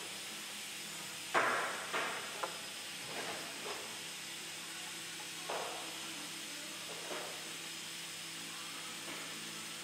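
Handling knocks and clicks as a plastic side handle is fitted onto an extrusion welder: several short, sharp knocks spread over the first seven seconds, the loudest about a second and a half in, over a steady hiss.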